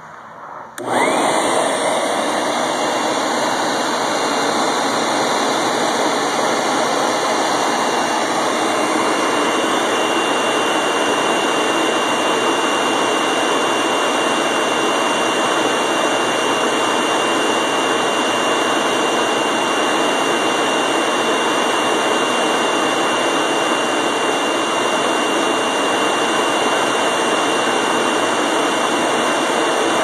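An electric air blower is switched on about a second in and runs steadily, forcing air through a PVC pipe into a charcoal-filled bucket furnace as a loud rush of air with a thin steady whine on top. The forced draft drives the charcoal to glowing red heat and then to open flame.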